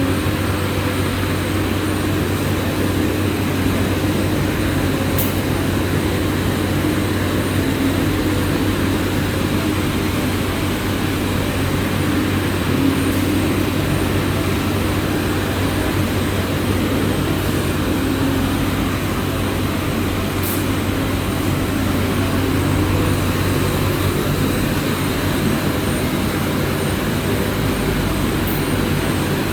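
Industrial machinery of a solar panel recycling line running steadily: a constant low hum and mechanical drone.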